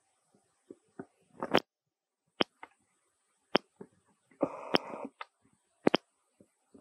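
Leafy plants being pulled and torn by a baby monkey's hands: scattered sharp clicks and snaps of leaves and stems, with a short rustle of foliage about four and a half seconds in.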